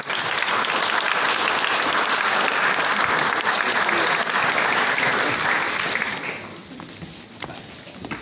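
Audience applauding, full and dense for about six seconds, then dying down to scattered claps.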